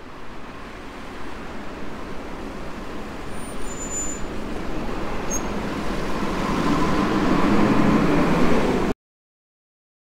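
City street traffic noise, a steady rushing haze of passing vehicles that grows steadily louder and then cuts off abruptly about nine seconds in.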